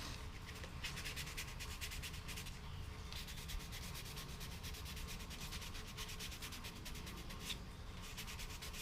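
Sandpaper rubbed by hand along an aspen walking stick in quick, even back-and-forth strokes, a soft rasping.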